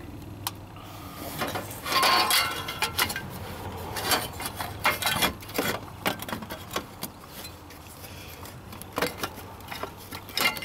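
A sheet-metal shield being worked loose and lifted off a hybrid battery pack by gloved hands: an irregular run of light metallic clinks, knocks and scrapes.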